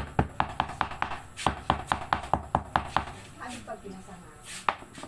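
Herb leaves being pounded by hand with a hard striker. The dull, even knocks come about five a second, stop about three seconds in, and a few loose knocks follow.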